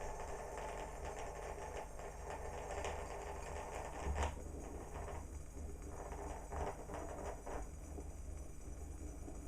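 Cona glass vacuum coffee maker bubbling as it brews: a steady, rapid fine crackle over a low hum, with louder pops about four and six and a half seconds in. The bubbling thins out near the end.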